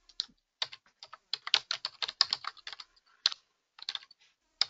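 Typing on a computer keyboard: quick runs of keystrokes with a short pause about three seconds in.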